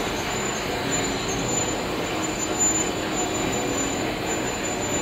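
Large engine lathe running and taking a cut on a metal workpiece: a steady mechanical machine noise with faint steady tones over it.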